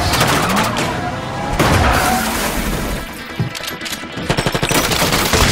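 Action-film trailer soundtrack: music mixed with crashes and shattering impacts, then a rapid burst of gunfire starting about four seconds in.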